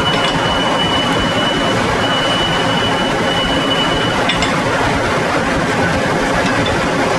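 Steady machine noise of a factory shop floor. A faint high whine runs for the first four seconds and then stops, with a light click just after.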